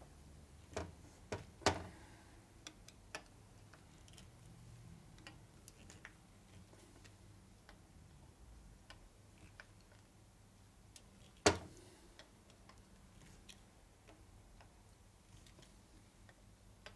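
Light clicks and taps of small metal parts and hand tools being handled during a transmission reassembly, with one sharp metallic knock about eleven and a half seconds in.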